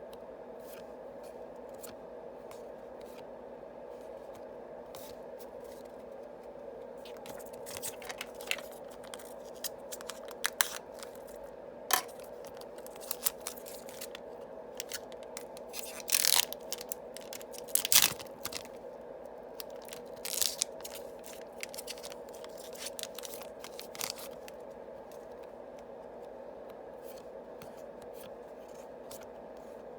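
Yu-Gi-Oh! foil booster packs being opened and the cards handled: a run of short sharp tears, rustles and clicks through the middle stretch, over a steady low hum.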